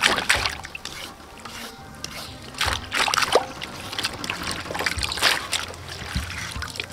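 Hands swishing and rinsing long beans and red chilies in a metal basin of water: repeated splashing and sloshing in bursts, with water trickling off as the bunch is lifted out.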